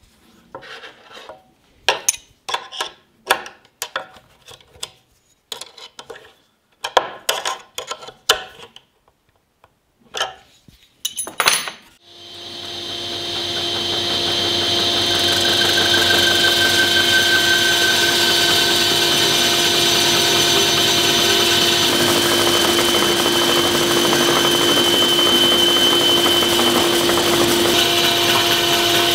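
Wood being worked by hand in short, irregular rubbing strokes. About twelve seconds in, an electric woodworking power tool starts, winds up over a few seconds and runs steadily.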